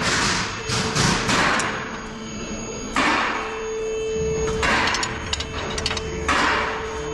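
Hammer blows on the steel wheel hub and knuckle during a hub bearing replacement: about seven sharp strikes at irregular intervals, each followed by a short ringing decay.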